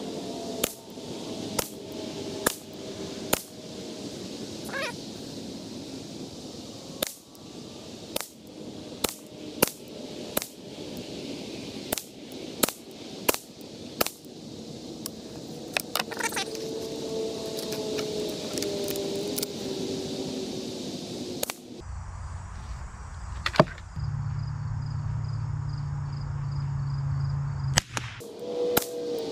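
Ruger 10/22 semi-automatic .22 rimfire rifle with a Kidd 20-inch stainless fluted barrel firing a string of single shots of SK Rifle Match ammunition, about one crack a second, spacing out after the middle. A low steady hum takes over for several seconds near the end.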